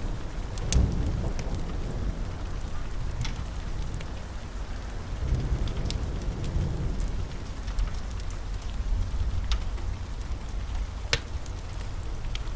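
Steady rain with low rolling thunder that swells about a second in and again around five to seven seconds in. Scattered sharp ticks sound over the rain.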